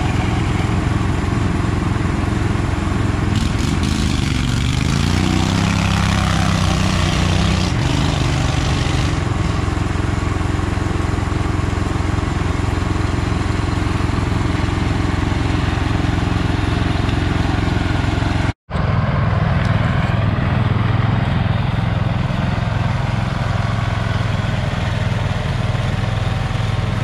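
Off-road garden tractor engine running steadily under load, with the pitch wavering and rising for a few seconds early on. The sound breaks off for an instant about two-thirds through and then carries on the same.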